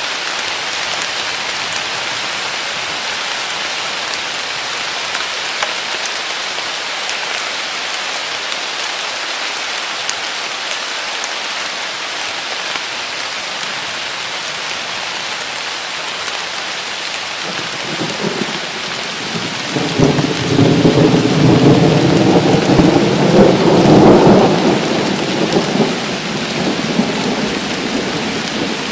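Heavy summer downpour falling steadily. About two-thirds of the way through a roll of thunder builds, rumbles loudest for several seconds, then dies away near the end.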